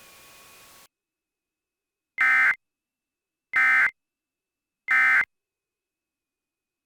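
Three short, loud bursts of Emergency Alert System data tones, each about half a second and evenly spaced. They sound like the end-of-message code that closes an EAS alert. A faint hiss stops about a second before the first burst.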